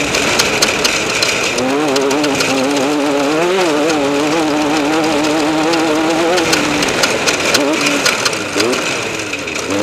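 Off-road race vehicle engine running at a held, wavering pitch for several seconds, then short rising revs near the end.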